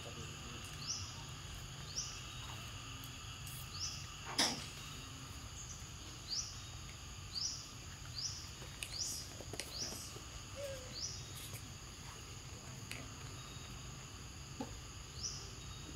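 Forest ambience: a steady high insect drone, with a bird repeatedly giving short rising chirps about once a second, and a single sharp click about four seconds in.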